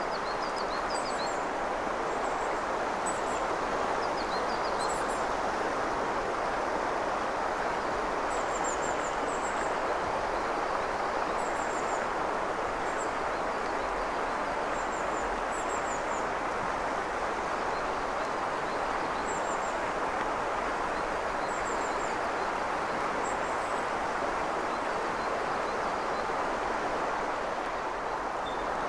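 Steady rush of the Azusa River, a shallow mountain river running over stones, with small birds giving short, high chirps now and then.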